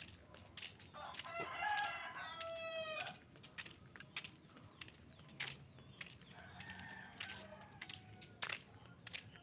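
A rooster crowing: one loud crow about a second in that lasts about two seconds and ends on a long falling note, then a second, fainter crow about six and a half seconds in. Scattered light clicks run underneath.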